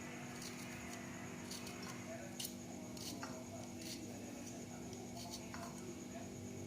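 Faint, scattered knife strokes scraping on a cutting board, about one a second, over a steady low hum.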